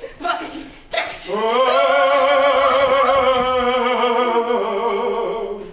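A performer's voice singing one long held note with a wavering vibrato, beginning about a second in after a few short vocal sounds and fading away near the end.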